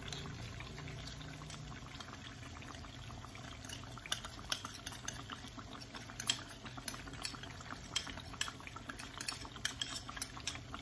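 Oil and tomato sauce in a wok bubbling and spitting with small crackles that grow more frequent, while a curry powder and water paste is poured in.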